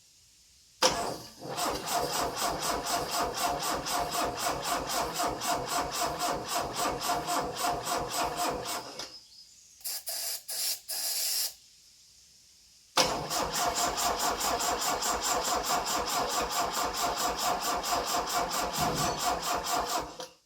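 Saab Sonett III's Ford V4 engine being cranked on the starter without firing: a long crank of rhythmic, evenly spaced cranking beats, three short blips of the starter, then a second long crank that ends abruptly. The engine will not catch even though the fuel bowl and pump are primed.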